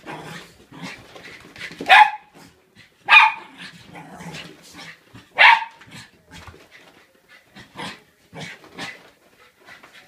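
Two Border Terriers play-fighting, with three loud sharp barks about two, three and five and a half seconds in. Softer noises of the scuffle fill the gaps between them.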